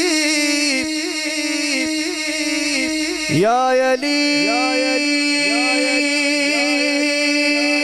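A man singing a naat into a microphone, drawing out long held notes with wavering melodic ornaments and no clear words, sliding to a new note about three seconds in.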